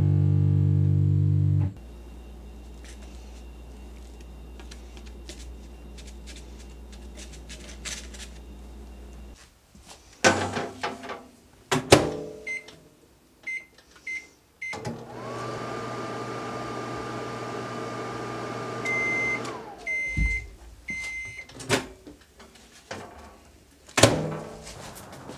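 Countertop microwave oven in use: the door clunks open and shut, the keypad beeps a few times, and the oven runs with a steady hum for about five seconds. It stops with a series of longer beeps at the end of the cycle, and the door clicks open again near the end. The first second or two is the tail of background music.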